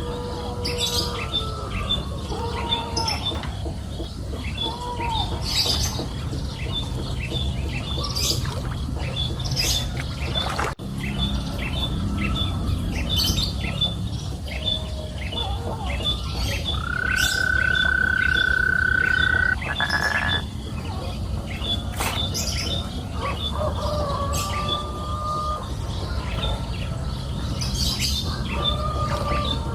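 Birds chirping and calling: a steady run of short high chirps, about two or three a second, with lower whistled calls now and then and one long held whistle of about three seconds two-thirds of the way through, over a low steady background noise.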